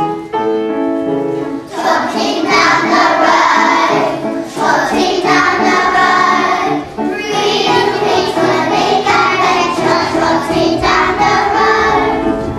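A group of young children singing together with piano accompaniment. Steady piano notes lead in, and the singing comes in about two seconds in, in phrases with short breaks.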